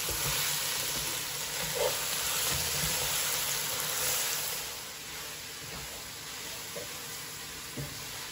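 Onions, ginger-garlic paste, green chillies and coconut slices sizzling in oil in a non-stick pan as they are stirred and sautéed. The sizzle eases a little about five seconds in, with a few light knocks from the stirring.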